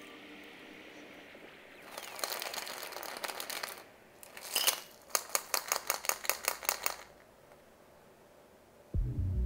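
A creamy Grasshopper cocktail double-strained from a metal shaker through a fine-mesh strainer into a coupe glass: a soft pouring hiss with faint ticks. Then about two seconds of quick metallic rattling, some six a second, as the shaker is jiggled over the strainer to shake out the last drops.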